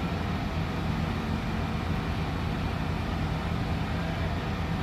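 Engine of heavy tree-removal machinery running steadily at a constant speed: an even low hum that neither rises nor falls.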